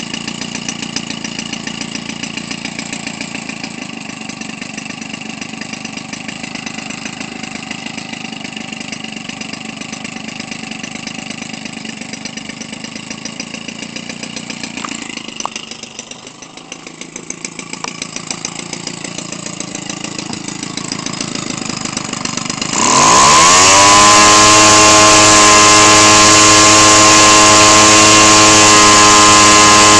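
Weedeater Featherlite 25cc two-stroke engine with a gutted muffler, turning an 18x6 model-airplane propeller: it idles steadily, then about three-quarters of the way through it is throttled up sharply to a loud, steady full-throttle run.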